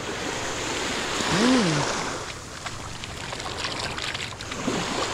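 Small sea waves washing over the shallows of a beach, the wash swelling about a second and a half in, with light splashing of feet wading in the surf. A short rising-and-falling vocal sound comes with the swell.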